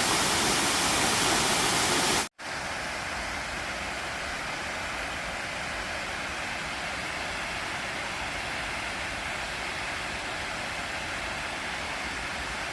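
Waterfall rushing steadily. About two seconds in, the sound cuts out for an instant and comes back as a quieter, more distant rush of falling water.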